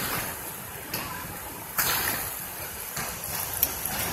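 Steady rush of river water, an even hiss, with a few sudden knocks and rustles near the start, about a second in and just before two seconds.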